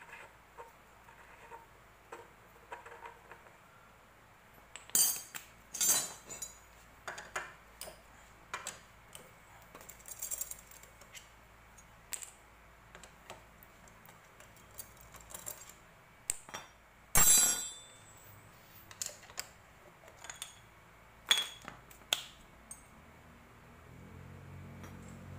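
Scattered metallic clinks and clatter of hand tools, bolts and a cover on a stopped motorcycle engine as the cam-side cover on the cylinder head is unbolted and removed. The loudest clatter comes about 17 s in.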